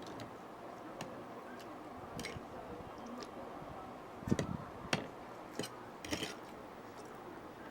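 A person eating: scattered short clicks and wet smacks of chewing and mouth sounds, the loudest about four and a half and five seconds in.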